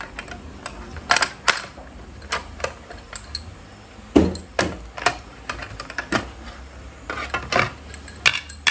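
Plastic base-ten blocks clicking and tapping as they are picked up, knocked together and set down on a table: about a dozen irregular sharp clicks, the loudest about four seconds in.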